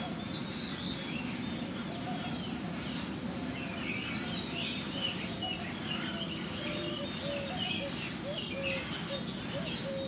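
Several wild birds chirping and calling over a steady low background rumble, with a run of short, low, evenly repeated notes near the end.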